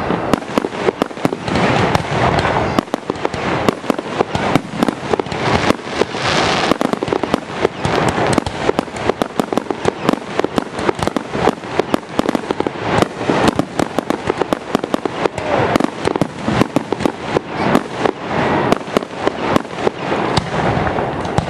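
Aerial fireworks shells bursting directly overhead: a dense, unbroken barrage of sharp bangs and crackles, several a second.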